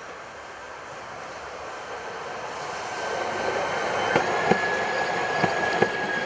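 CKD Tatra T6A2 tram approaching and passing close by on ballasted track: its rolling noise builds, then four sharp clacks from the wheels on the track, with a thin steady high whine as it goes by.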